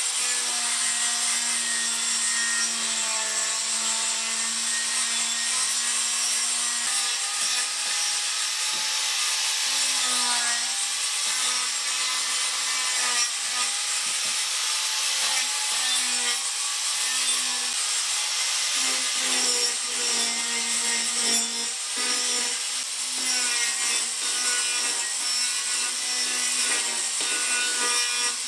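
Corded angle grinder with an abrasive disc grinding the outside of a mango-wood bowl, shaping it. The motor's pitch wavers up and down as the disc is pressed into the wood and eased off.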